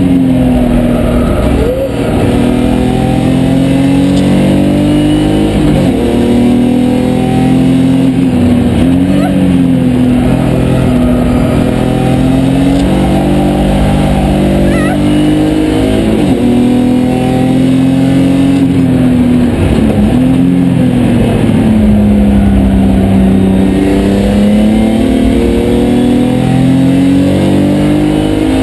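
BMW 325 Cup race car's straight-six engine heard from inside the cabin, driven hard on track: its pitch climbs under acceleration and falls back again and again, with several sharp brief drops between pulls.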